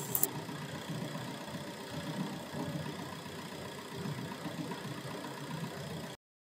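Common-rail diesel engine (Bosch CRDi system) idling steadily, out of gear; the sound cuts off suddenly near the end.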